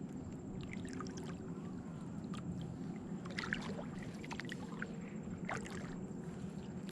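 Kayak paddle strokes: the blade splashes and drips in the water about once a second, over a steady low rush of water.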